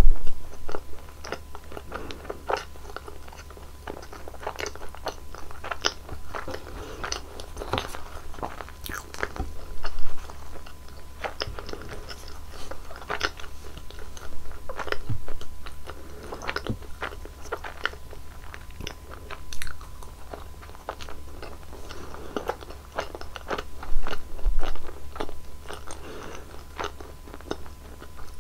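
Close-miked eating of Nutella-filled rolls: crisp bites and steady chewing with sticky mouth clicks, with louder bites about 10, 20 and 24 seconds in.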